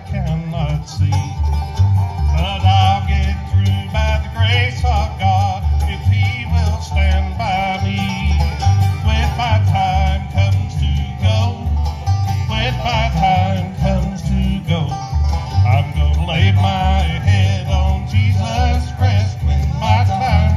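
Bluegrass band playing an instrumental break: banjo picking over guitar, with a steady pulsing bass line.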